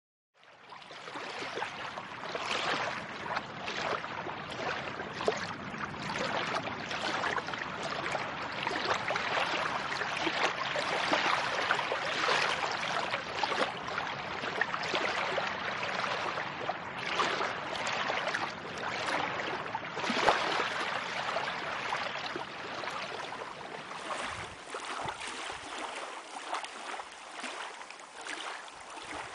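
Lake water washing and splashing against a rocky shore: a continuous, uneven rushing that thins out a little in its low end near the end.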